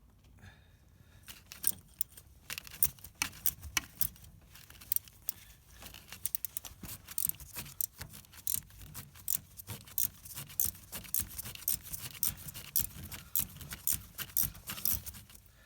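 Ratchet wrench clicking in quick, irregular runs of short metallic clicks as a broken exhaust manifold bolt, a nut welded onto it, is backed out of the cylinder head. The clicks are sparse at first and come thick and fast from about halfway.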